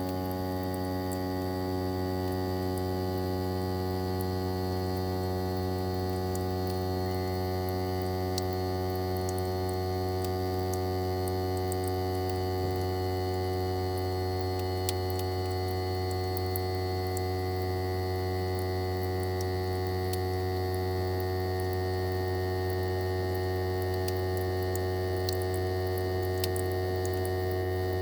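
Daikin ARN22HS outdoor unit's swing-type rotary compressor running on its own with a steady hum made of many tones and no fan noise, the compressor-only sound typical of the unit's defrost cycle.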